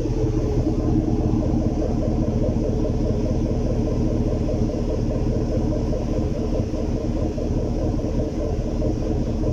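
2018 Sierra pickup's engine idling, with an uneven, stuttering exhaust beat. This is a misfire that wanders between cylinders rather than staying on one, which the mechanic suspected came from the fuel pump.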